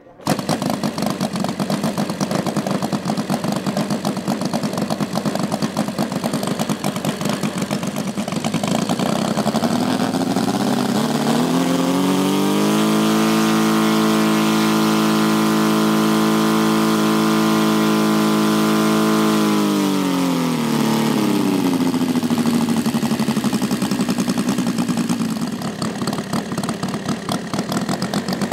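Saito FG-90R3 three-cylinder four-stroke radial engine on a giant-scale model airplane starting abruptly, then running. About ten seconds in it is throttled up to a steady high-rev run-up for around six seconds, then brought back down to a lower idle.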